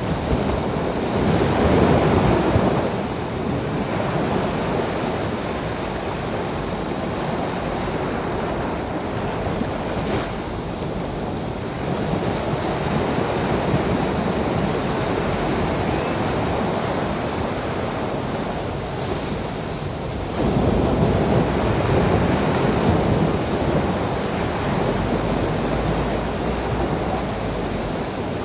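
Sea waves breaking on a shore: a continuous wash of surf that swells three times, about a second in, around the middle and again after about twenty seconds.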